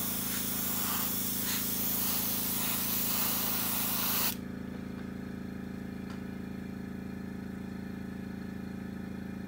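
Gravity-feed airbrush spraying thinned smoke tint onto a clear plastic windscreen at about 8 PSI: a steady airy hiss that cuts off suddenly a little past four seconds in. A steady low hum continues underneath.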